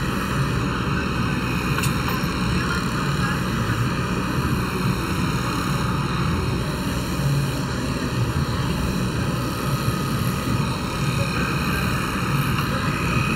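Electric livestock clippers running steadily as they shear the hair on a heifer's hide, a constant motor buzz close up.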